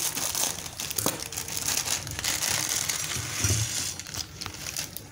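Dry instant noodle blocks being crushed and broken apart by hand, with the crinkling of their foil-lined wrappers as the pieces are shaken out into a bowl: an irregular, continuous crunching and crackling.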